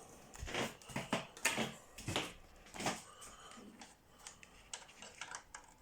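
Handling noise: a handful of sharp clicks and knocks as a cable and small parts are handled, with lighter, quicker ticks in the last couple of seconds.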